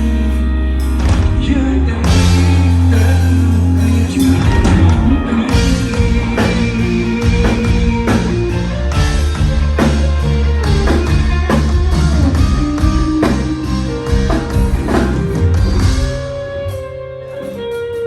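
A live band playing a song at sound check: guitar over bass and drum kit, with no vocals. The playing drops away briefly near the end before picking up again.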